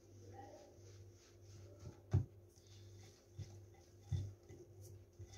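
Hand whisk beating chocolate cake batter in a glass bowl: light repeated ticks of the wires against the glass, with a few louder knocks, the loudest about two seconds in.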